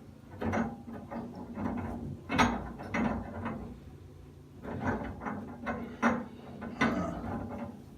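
Hand tools working the valve stem of an old-style Price Pfister two-handle shower valve: short, irregular metallic ratcheting strokes, roughly one a second, with a brief pause midway.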